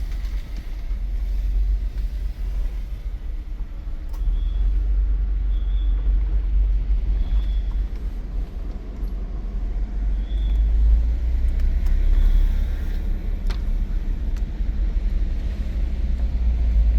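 Car being driven, heard from inside the cabin: a steady low rumble of engine and tyres on the road. A few faint short high squeaks and a couple of light clicks come and go.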